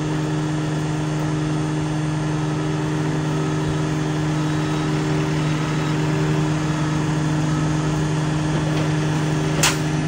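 JCB telehandler's diesel engine idling steadily, with a short sharp click near the end.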